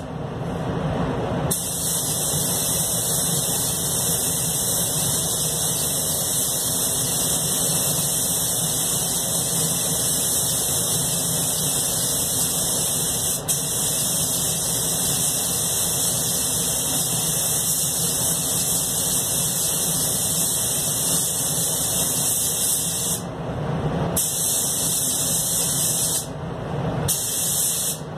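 Anest Iwata Classic Plus spray gun hissing as compressed air atomises paint, in long steady passes. The hiss stops briefly about a second in and twice near the end where the trigger is let go, while a steadier lower rush carries on underneath.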